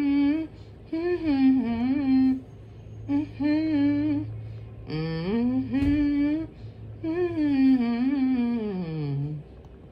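A man humming a wordless melody into a studio microphone in five short phrases with gliding pitch, the last one sliding down near the end. He is mumbling out a tune until the words come. A single click sounds about six seconds in.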